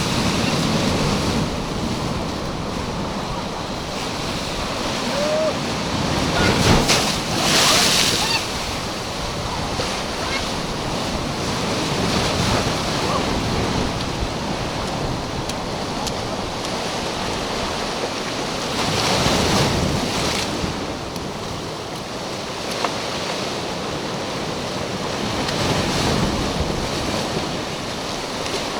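Black Sea surf washing onto the shore, swelling louder three times as waves break. Wind buffets the microphone throughout.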